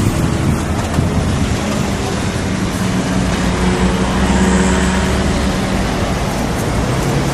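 Road traffic at a busy junction: cars passing, with a steady engine hum for a few seconds in the middle.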